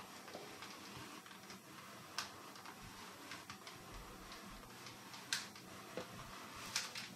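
Small clothes iron pressed and moved over a sheet of paper on a cardboard backcard: faint paper rustling with a few light clicks.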